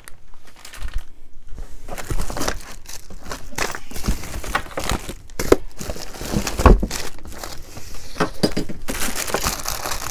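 Packaging crinkling and rustling as items are rummaged out of a box of wallets and belts, with a couple of dull knocks, the louder one near seven seconds in.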